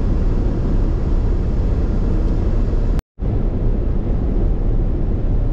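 Steady road and engine noise of a car driving on a motorway, heard from inside the car and heaviest in the low end. It drops out completely for a split second about three seconds in, at a cut in the recording.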